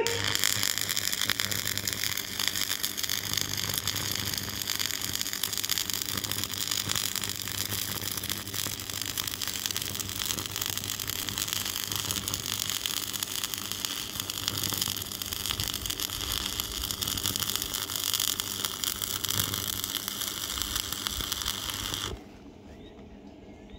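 Stick (arc) welding electrode crackling and sputtering steadily as a weld bead is laid on the broken steel cultivator arm, over a low steady hum. The arc cuts off suddenly about two seconds before the end.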